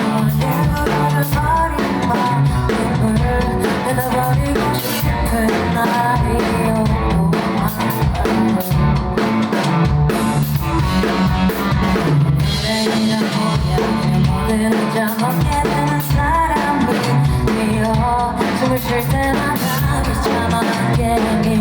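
Band music with a prominent drum kit, bass drum and snare hits, over other instruments and some singing.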